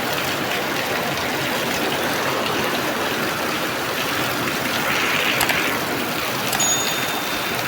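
Rain falling and a river flowing past, a steady even rush of water noise.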